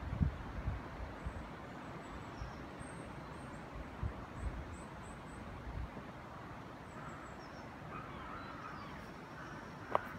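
Outdoor ambience: a steady rushing background with faint, short high bird chirps and a few low bumps on the microphone, mostly in the first half. There is a sharp click near the end.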